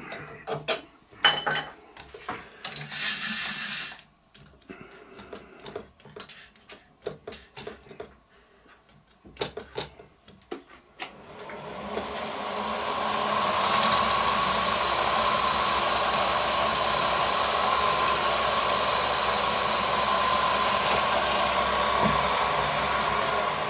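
Clicks and knocks of metal angle being handled and lined up on the milling machine table, then the mill spindle starts about eleven seconds in with a high whine and runs steadily while a twist drill bores a bolt hole through the angle. Near the end the highest part of the whine drops out.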